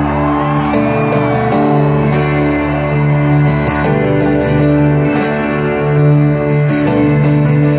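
Instrumental break in a folk-rock song: guitar playing held chords over steady low notes, with no singing.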